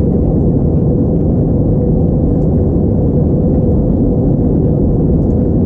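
Airbus A321 in flight, heard inside the cabin: the steady low rumble of airflow and engines, with a faint held hum underneath. The sound does not change.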